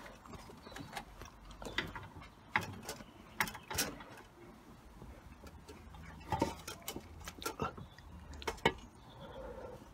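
Aluminium cylinder head of a BMW M57 inline-six diesel being lowered onto the block over the head gasket and guide studs, giving a series of irregular metal clinks and knocks.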